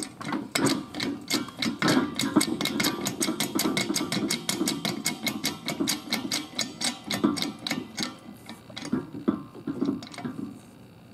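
Rapid, even clicking, about five to six clicks a second, from hand-tool work pressing a bearing off a mower gearbox shaft. Near the end the clicks give way to a few scattered knocks, then stop.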